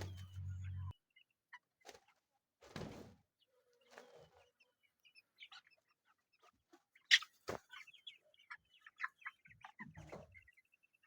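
Young broiler chickens peeping and clucking softly in scattered short calls, with a few short knocks among them, the loudest about seven seconds in.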